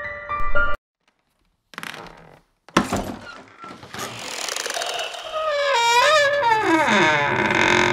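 Horror-style sound effects: a sharp thud near three seconds in, then a wooden door creaking open, the creak sliding down in pitch over a swelling rush of noise. Piano music cuts off just before.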